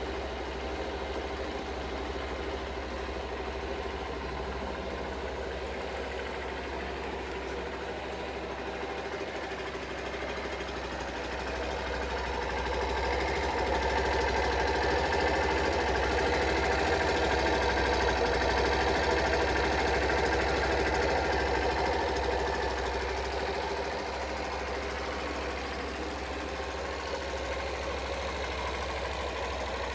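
Hero Hunk 150 motorcycle's single-cylinder four-stroke engine idling, its exhaust note running steadily; it grows louder for about ten seconds in the middle, then settles back to idle.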